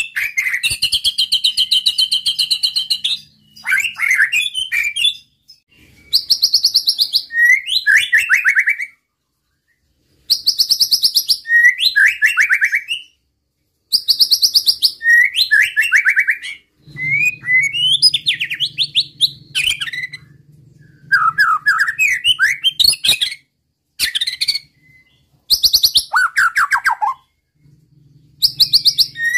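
White-rumped shama (murai batu) singing loudly: about ten song phrases, each a second or three long with short pauses between, made of fast high trills and sharp rising and falling whistled slurs.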